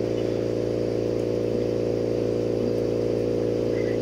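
Steady mechanical hum of a motor running in the workshop, a drone of several even tones that holds unchanged.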